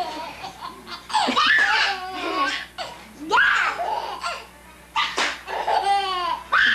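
Baby laughing in repeated bursts, with a sharp knock about five seconds in.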